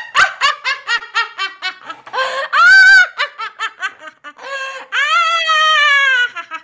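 A woman's high-pitched witch cackle: a run of quick staccato 'ha' notes, a loud held shriek about two and a half seconds in, more quick notes, then a long note that slides down in pitch near the end.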